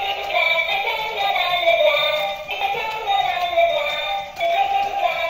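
Light-up walking bunny toy playing its built-in electronic song through a small speaker: a continuous thin, tinny synthetic melody with no bass.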